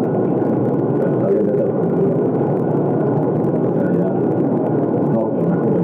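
A man's voice talking in Spanish, muffled and hard to make out under a loud, steady low noise from a poor-quality recording.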